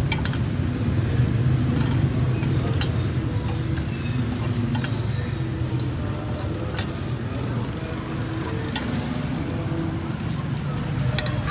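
Steady rumble of street traffic running past, with hot oil sizzling as taro cakes deep-fry and a few sharp ticks scattered through it.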